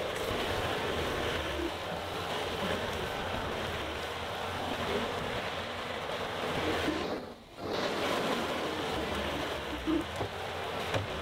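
Wind rushing over the microphone, dropping away briefly about seven seconds in, over a John Deere 325G compact track loader working in the distance as it pushes brush and dirt.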